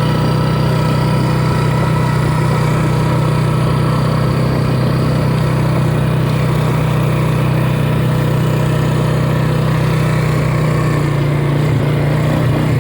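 Small vehicle engine running at a steady speed while driving, a constant even drone.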